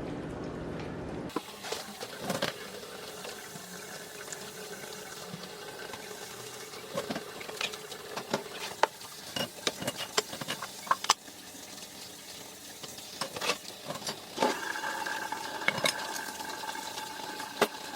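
Water running from a kitchen tap into a sink, with dishes clinking and knocking against each other.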